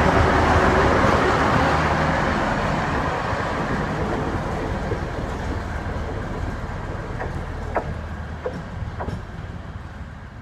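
DR1B diesel multiple unit running past close by and pulling away, its rumble fading steadily as it recedes. A few short sharp clicks come about seven to nine seconds in.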